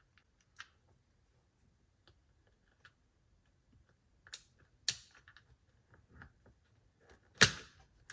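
Scattered small clicks and knocks of plastic and metal seat-release parts being handled, as the cable lug is fitted into the seat mechanism. The loudest is a sharp knock about seven seconds in, with another about five seconds in.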